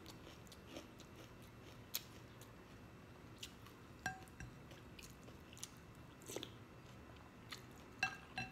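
Close-miked eating sounds: soft chewing and mouth clicks on fried galunggong fish and rice eaten by hand. A serving spoon makes a brief ringing clink against a glass soup bowl about four seconds in, and again near the end.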